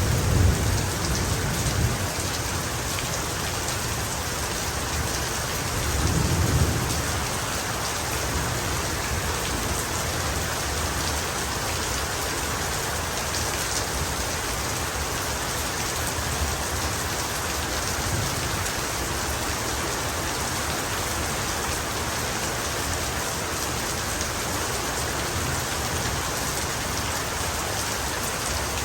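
Heavy rain falling steadily in a thunderstorm, with low thunder rumbles at the start and again about six seconds in.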